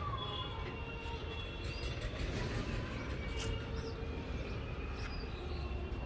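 Birds chirping in short high calls over a steady low background rumble, with a few faint clicks.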